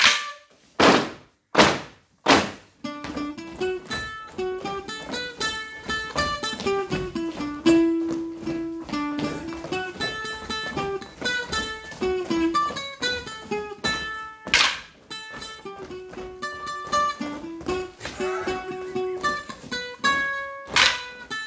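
Wooden Morris sticks clashed sharply four times in the first two and a half seconds, then a Morris dance tune played on a single instrument for the stick dance, with two more loud stick clashes near the middle and near the end.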